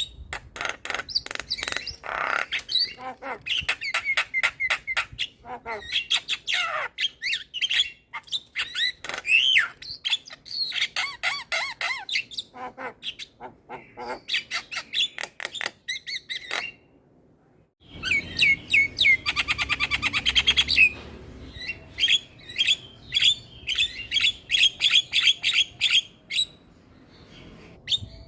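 Javan myna singing a long, varied song of whistles, squawks and clicking notes. About two-thirds of the way through it stops suddenly for a moment, then starts again with a fast rattling trill and more repeated whistled calls.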